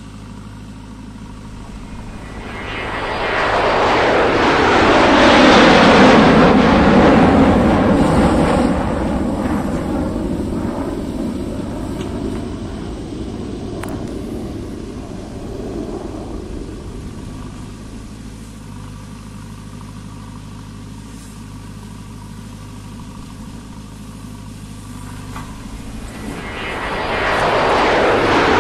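JCB 3DX backhoe loader's diesel engine running under hydraulic load, rising to a loud, rushing rev from about three seconds in and again near the end as the backhoe digs and lifts a bucket of mud, and dropping back to a steady lower run in between.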